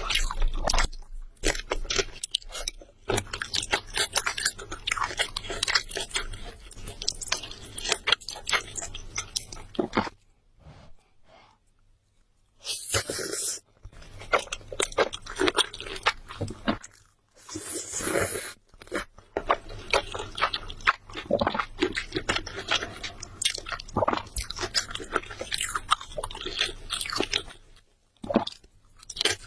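A person chewing crunchy food close to the microphone: rapid, irregular crunching with two short pauses, and a couple of brief louder rustling bursts.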